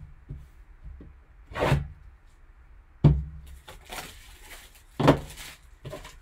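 A shrink-wrapped cardboard card box is handled and turned over on a table. It gives a few separate knocks and thunks as it is set down, with a stretch of thin, crinkly plastic-wrap rustling in between.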